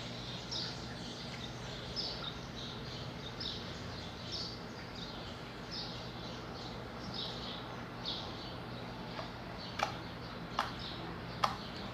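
A bird chirps short high notes about once a second in the background. Near the end come three sharp clicks as the slime is squeezed and made to click.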